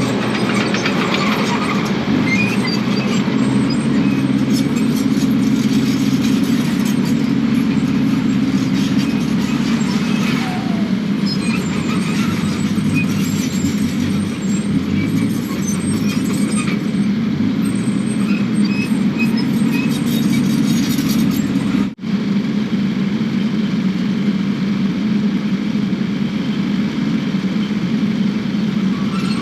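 Kubota KX080 excavator's diesel engine running steadily under work, with scattered metallic squeaks and clinks from the machine.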